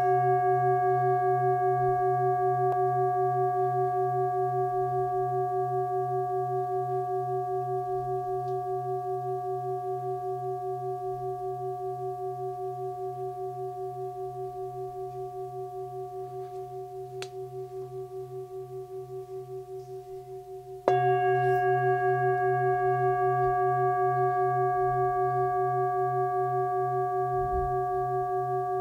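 Hand-hammered 25 cm 'Black Antique' singing bowl tuned to C at about 130 Hz, ringing with a slow, even pulsing as it fades. About 21 seconds in it is struck again and rings out at full strength.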